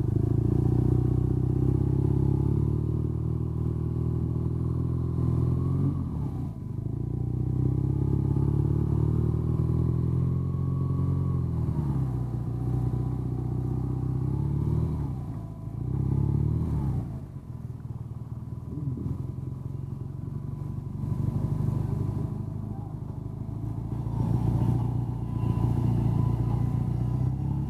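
BMW R nineT's air/oil-cooled boxer twin engine running at low speed. Its note rises and falls several times as the throttle opens and closes, with clear drops about 6, 12 and 16 seconds in.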